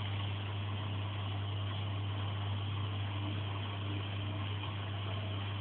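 Washing machine drum running on its spin cycle: a steady low hum with an even whirring noise over it.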